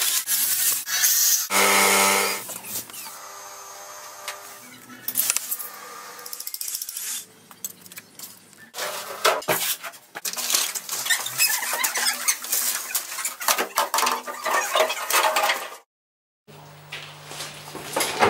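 Hand tools knocking and scraping on stone and rubble, a run of sharp clanks and scrapes. A held pitched tone sounds for a few seconds about two seconds in.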